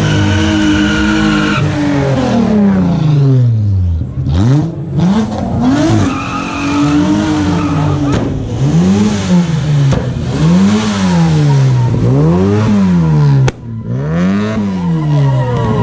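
Car engine revving hard and dropping back over and over, about once a second, as the car spins its tyres in a smoky burnout, with tyre squeal under the engine.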